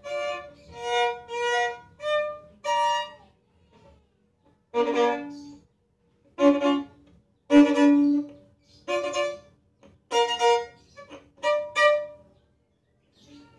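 Unaccompanied acoustic violin, bowed, playing a slow melodic phrase of separate notes in short groups with brief pauses between them; the playing stops near the end.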